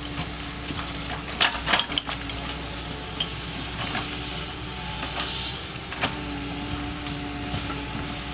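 Doosan 140 wheeled excavator working, its engine running steadily, with several sharp clanks and knocks from the digging. The loudest knocks come about one and a half seconds in.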